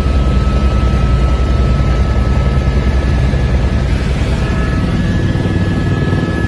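Helicopter in flight heard from inside the cabin: a loud, steady low drone of engine and rotor with a thin high whine over it, which shifts slightly higher about two-thirds of the way through.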